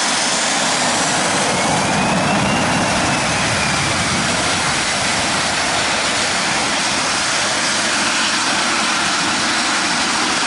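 Embraer EMB 505 (Phenom 300) business jet's twin turbofan engines running at taxi power as it taxis away: a steady rushing hiss, with a faint whine that rises and then falls in pitch about two seconds in.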